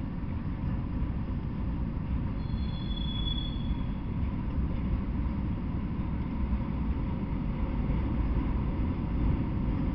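Freight train of autorack cars rolling past, a steady low rumble of wheels on rails, with a brief high squeal about two and a half seconds in.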